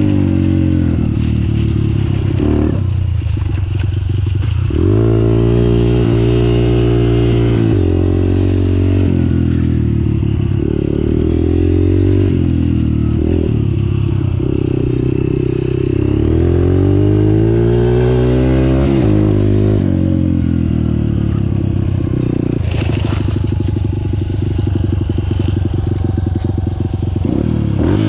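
Honda CRF150F's single-cylinder four-stroke dirt-bike engine running under load while being ridden, its note rising and falling again and again as the rider accelerates, shifts and eases off.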